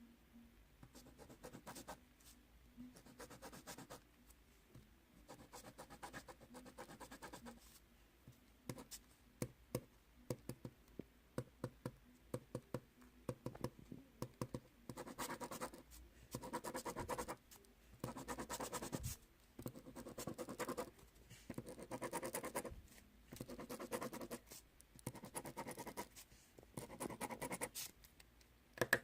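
Writing by hand on paper: light taps and short scratches at first, then a steady run of scratchy strokes about once a second.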